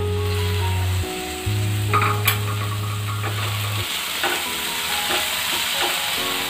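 Soaked moong dal and vegetables sizzling in oil in a nonstick kadai while a spatula stirs and scrapes through them. There are two sharp clicks about two seconds in. Background music with a low bass tone plays until nearly four seconds in.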